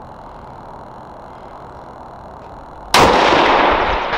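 A single 6.5 Creedmoor rifle shot from a Bergara B14 bolt-action about three seconds in, its report echoing on for over a second.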